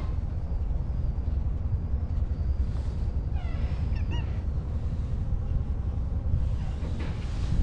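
White stray cat meowing twice, a short arching call about three seconds in and a briefer one just after, over a steady low rumble.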